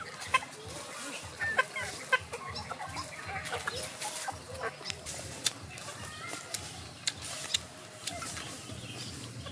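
Chickens clucking as they forage, short calls scattered through, with several sharp clicks standing out above them.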